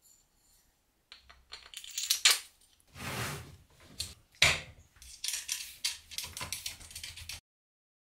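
Clinks, taps and scrapes of small metal parts being handled and fitted together, irregular, with a couple of sharper knocks.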